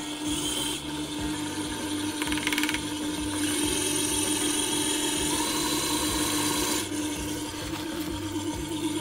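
Electric stand mixer running steadily, its motor humming as the flat beater churns flour into a soft mashed-potato dough in a steel bowl.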